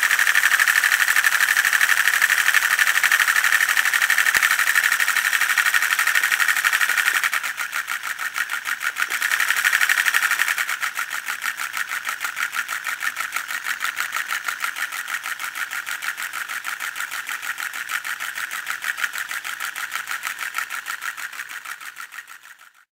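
LEGO Technic V-twin model engine running, its plastic pistons and crank making a fast, even clatter. It is louder for the first seven seconds or so, swells again briefly around ten seconds in, then runs on more quietly and fades out near the end.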